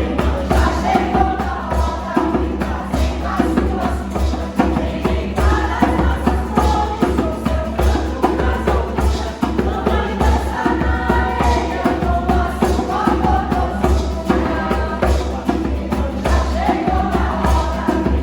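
Choir singing a song to a steady beat over a strong bass line.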